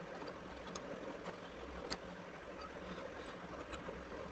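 A few faint computer-keyboard keystrokes, scattered clicks over a low, steady hiss and hum of microphone noise.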